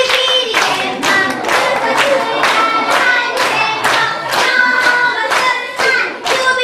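Hand claps keeping a steady beat about twice a second, with a voice singing a chant-like party song along to it.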